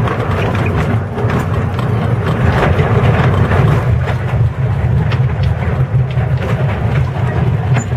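Small diesel locomotive on a 600 mm narrow-gauge railway running under way with a steady low engine drone, along with the rattle and clicking of the wheels and the open wooden wagon on the track.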